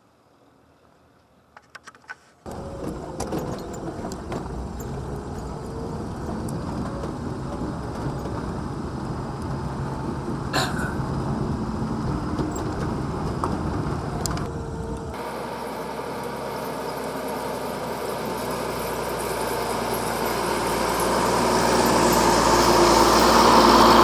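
Motor vehicle on a rough dirt road, engine and tyre noise cutting in about two seconds in. After a sudden change about halfway through, a truck's engine and tyres grow steadily louder as it comes close and passes.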